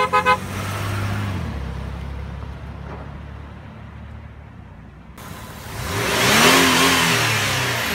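Three short tooting beeps, then a Dodge Dakota pickup truck's engine humming steadily and easing off. About five seconds in, a louder swell of engine and tyre noise rises and falls as the truck drives past.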